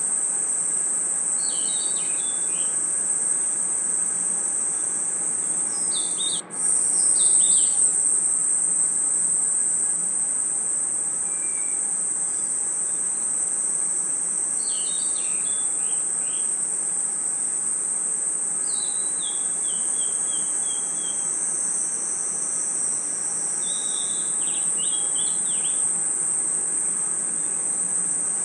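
Forest night ambience: a steady, high-pitched chorus of crickets and other insects, with short groups of chirping calls every few seconds. The sound drops out for an instant about six seconds in.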